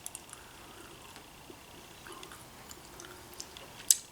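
A person chewing a Bertie Bott's jelly bean: faint chewing with small scattered clicks, and one sharper click near the end.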